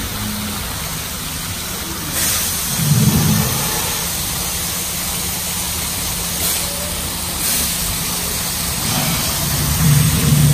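Steady rush and splash of artificial waterfalls pouring into the ride's water channel, over a low steady rumble, with louder low swells about three seconds in and again near the end.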